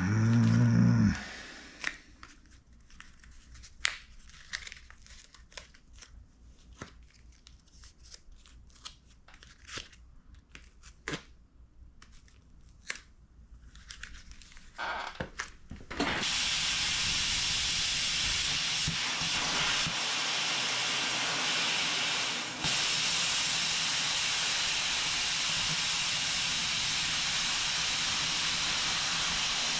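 Scattered clicks, taps and cardboard rustling from handling the cardboard forms, then about halfway a loud, steady hiss starts suddenly and carries on, growing a little louder a few seconds later.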